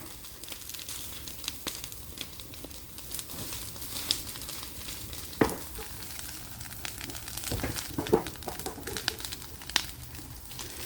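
Scattered light crackling and clicking from a demolition site, with a few sharper knocks about five and a half seconds in and again around eight seconds in.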